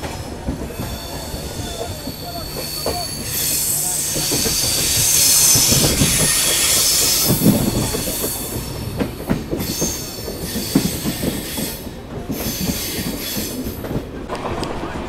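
Passenger train coaches running along the track, heard from an open coach door: a steady low rumble and clatter of the wheels, with high-pitched wheel squeal that builds from about four seconds in, is loudest until about seven seconds, and fades out near twelve seconds.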